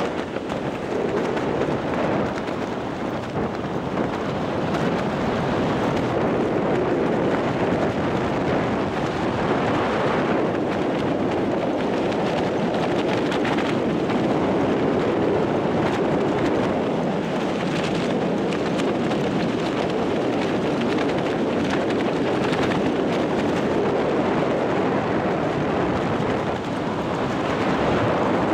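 Steady rushing wind of skydiving freefall blasting over the camera's microphone.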